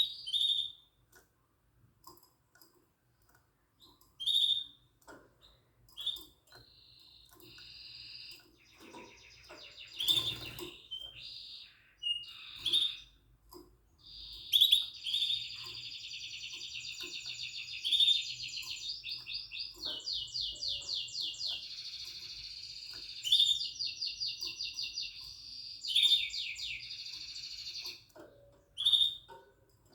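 Yellow mosaic canary singing: short chirps and notes at first, then from about halfway long, fast rolled trills with brief pauses between phrases. A short knock about ten seconds in.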